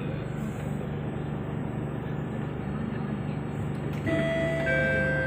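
Singapore MRT train running between stations, a steady rumble heard from inside the carriage. About four seconds in, a two-note descending chime sounds and rings on: the signal that comes before the next-station announcement.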